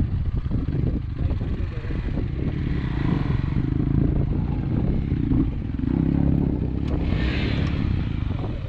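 Motor vehicle engine running with a low, steady rumble, a pitched engine note coming up more strongly in the middle, and a single sharp click about seven seconds in.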